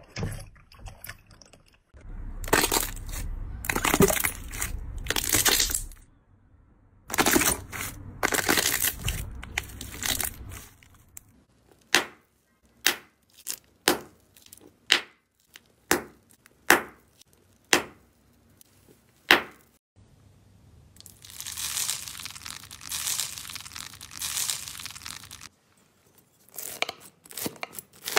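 Slime and water beads being pressed and poked, giving stretches of dense crackling and squishing. In the middle comes a run of single sharp pops, about one a second.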